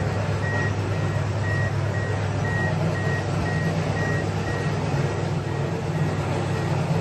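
A car's electronic warning chime beeps steadily about twice a second, the reminder a Toyota gives while its door is open with the key in the ignition. A steady low hum runs underneath.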